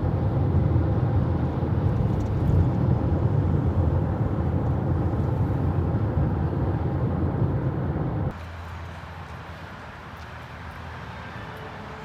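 Steady low rumbling noise, dropping abruptly to a much quieter hum about eight seconds in.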